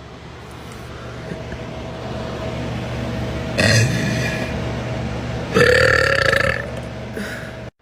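A person's long, drawn-out burp, low and steady in pitch, running about seven and a half seconds and slowly getting louder, with two louder, harsher bursts partway through.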